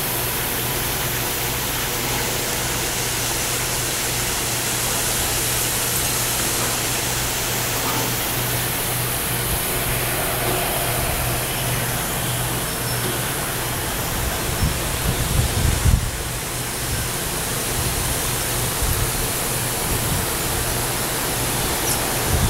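Steady wind rushing through trees, with a low hum underneath. From about two-thirds of the way in, gusts buffet the microphone.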